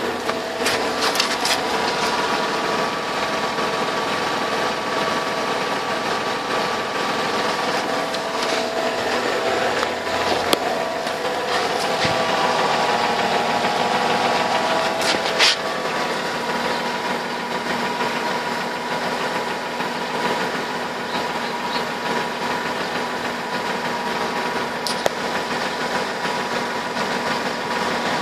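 Mercedes-Benz W211's M112 V6 petrol engine running steadily, with the knock its owner is trying to track down; a few sharp clicks stand out at irregular times.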